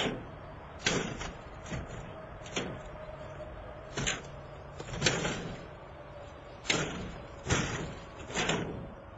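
Crowbar striking and jabbing at a window security screen: a series of irregular metal blows, roughly one a second, as someone tries to break through the screen.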